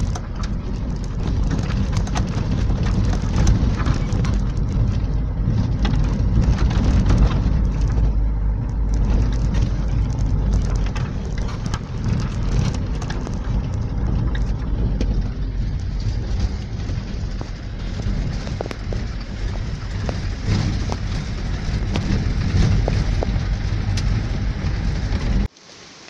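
Safari car driving over a rough dirt road: a steady, heavy rumble from the moving vehicle, with constant rattles and knocks as it jolts over the bumps. The noise cuts off abruptly near the end.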